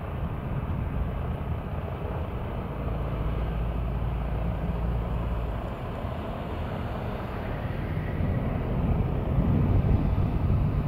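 Steady low rumble of a parked Boeing 777-300ER at the apron, with wind buffeting the microphone in stronger gusts near the end.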